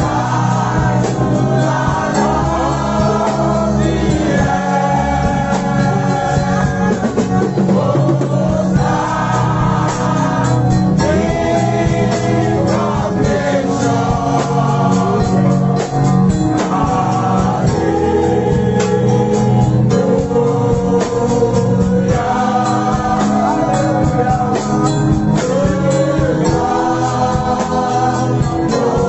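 Gospel praise singing: several voices singing a worship song together over steady instrumental backing.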